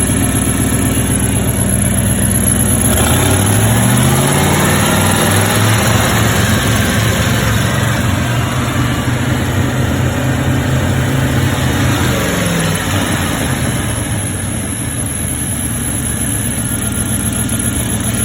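1995 Ford F-150's 302 V8 idling, then revved up about three seconds in, held at a raised speed for several seconds, and let fall back to idle shortly after twelve seconds in.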